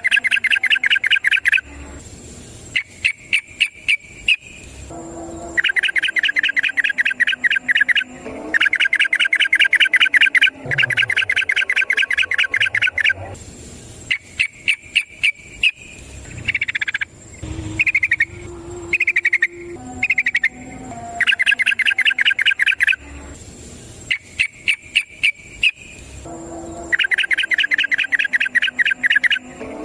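Yellow-vented bulbul (trucukan) singing its long rapid trilling song: runs of fast repeated notes lasting one to four seconds, broken by short calls and brief pauses, over and over.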